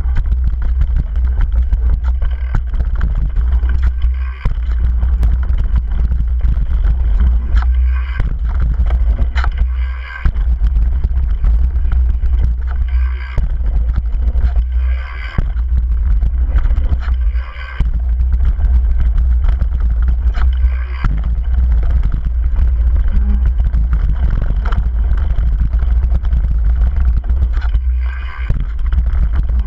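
Wind buffeting a helmet or chest camera's microphone on a fast downhill mountain-bike run: a loud, steady low rumble, with tyres on loose dirt and the bike rattling over bumps coming through in short louder patches every few seconds.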